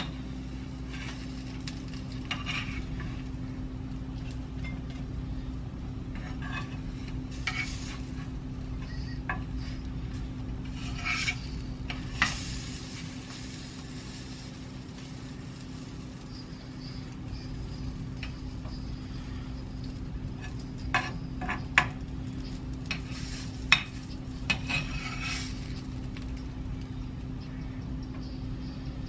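Chips Ahoy cookies deep-frying in a pan of hot oil, sizzling, while metal tongs clink and scrape against the pan: a sharp clink about twelve seconds in and a cluster of clinks near the end. A steady low hum runs underneath.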